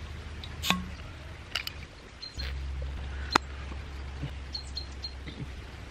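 Glass beer bottle being opened by hand: a few light clicks of handling, then one sharp click about three and a half seconds in as the cap comes off. The beer is warm and foams over.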